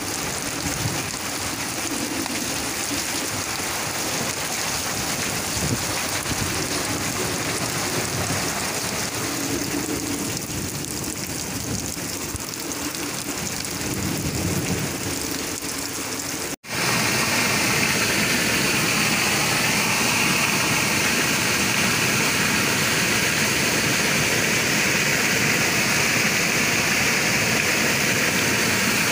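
Heavy storm rain pouring onto the ground, with muddy runoff water flowing. About two-thirds of the way through, the sound cuts out for an instant, and a louder, steady rush of floodwater takes over.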